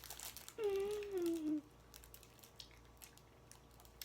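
A woman's pained whimper, a single drawn-out moan about a second long that falls in pitch, from the burning pain of very spicy ramen. Faint clicks and crinkles sound around it.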